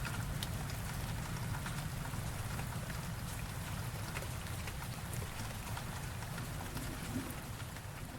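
Steady rain falling, with individual drops ticking throughout, over a continuous low rumble.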